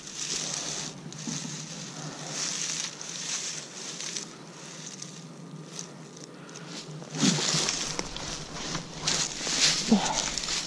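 Digging into forest soil to recover a metal-detector target: irregular scraping and crunching of earth and leaf litter, louder near the end.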